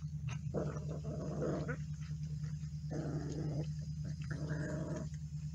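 Pit bull puppies growling at a shared food pan while they eat, in three short rough bouts, over a steady low hum.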